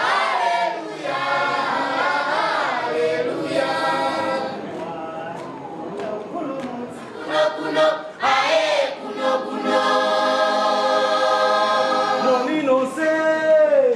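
Malawian church choir singing in harmony, many voices together, holding a long chord in the second half.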